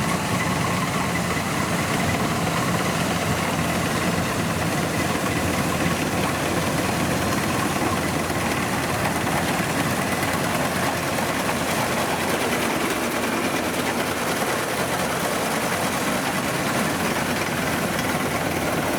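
Kubota DC-93G combine harvester's diesel engine running steadily under load.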